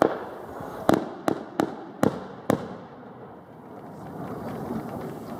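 Daytime signal fireworks bursting overhead: a rapid string of six sharp bangs within about two and a half seconds, heralding the start of the field burning, then only the murmur of the open-air crowd.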